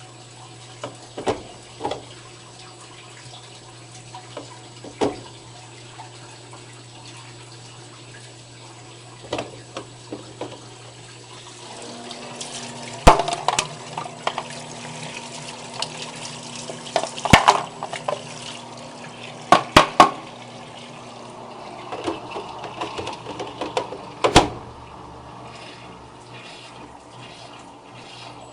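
Electrolux washing machine running with water splashing and sloshing over a steady hum. Partway through, the water gets louder and a second, higher hum comes in for several seconds, and a few sharp knocks sound during that stretch.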